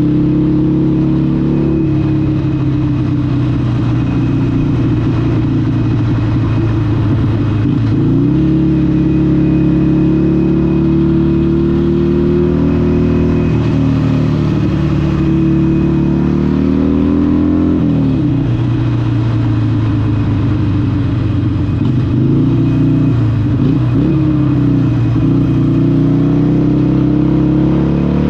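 Harley-Davidson Sportster 883 SuperLow's air-cooled 883cc Evolution V-twin running through a Vance & Hines exhaust under way. The exhaust note holds steady, then drops in pitch and climbs again about eight seconds in, about eighteen seconds in and again around twenty-four seconds, as the throttle is rolled off and opened back up. It rises once more near the end.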